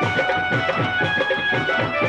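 Live Punjabi folk music on stage: an instrumental passage with a quick, steady drum beat of about four to five strokes a second under held melody lines.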